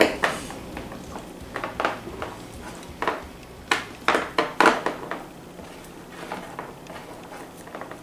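A person eating with her mouth crammed full of gummy fruit snacks: short, wet chewing and breathing noises that come in irregular bursts and cluster about four to five seconds in, as she struggles to get the sticky mass down.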